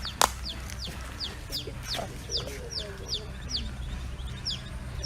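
Baby chick peeping over and over: short, high cheeps that each fall in pitch, about three or four a second.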